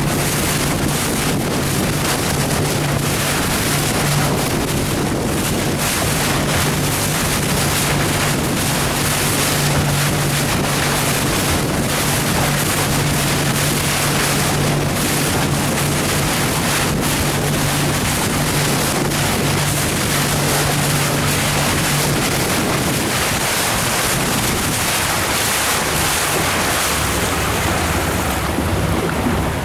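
Motorboat engine running with a steady hum, under heavy wind noise on the microphone and splashing water; the engine hum fades about three-quarters of the way through.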